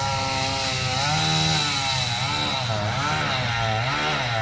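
Two-stroke chainsaw running at high revs, its pitch dipping and recovering several times as it loads up cutting through a tree.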